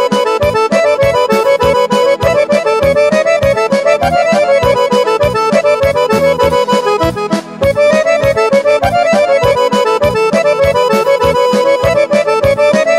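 Instrumental break of a Balkan folk-pop song, with no singing: a lead melody over a fast, steady beat.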